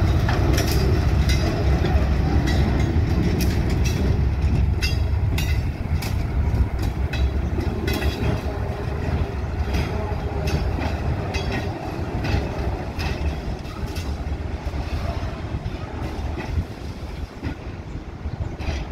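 Diesel shunting locomotive HAS 77 running as it moves a KiHa 183 series railcar through the yard, its engine giving a low rumble while the wheels clack over rail joints and points. The sound fades over the second half as the train draws away.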